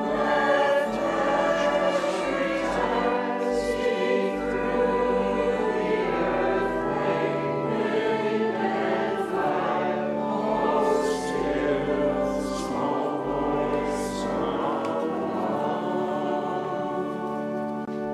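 Church choir singing slow held chords, with sustained low bass notes underneath.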